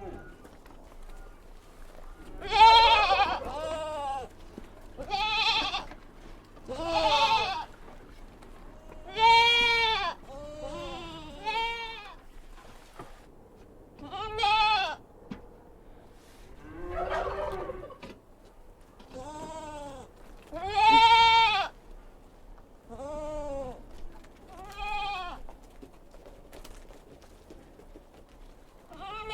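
Goats bleating over and over: about a dozen separate, fairly high calls, each under a second long with a wavering pitch, coming every one to three seconds.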